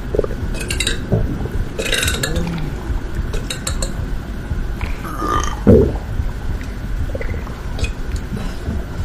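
A person burping: one loud, deep burp about halfway through, with a few shorter clicking mouth or throat noises before it over a low rumble.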